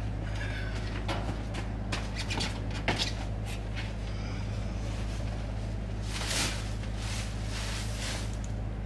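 Someone rummaging among plastic tubs and boxes on a high storage shelf: scattered light knocks and rustles, with a longer scraping rustle about six seconds in, over a steady low hum.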